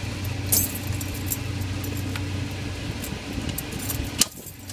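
Metal clinks and rattles from the operating handle of a 100 amp disconnect switch being worked, with a sharp clack a little after four seconds in as the switch is thrown, over a steady low hum.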